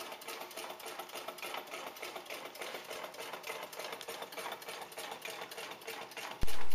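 Home-built gamma-configuration Stirling engine running at about 200 rpm, its pistons, displacer and crankshaft making a steady, rhythmic mechanical clatter.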